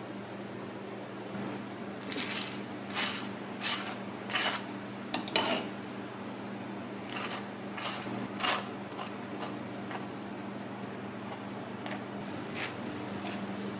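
Table knife spreading jam on toast: a series of short scraping strokes of the blade across the toasted bread, most of them in the first two-thirds, over a steady low hum.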